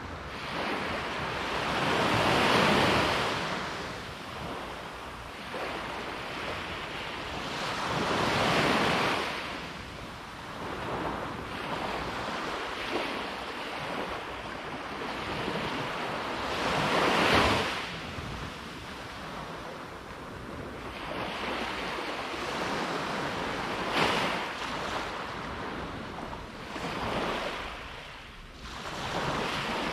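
Sea waves breaking and washing up the shore, the surf swelling and fading every several seconds, with the biggest surges about 3, 9 and 17 seconds in. A short sharp crack comes about 24 seconds in.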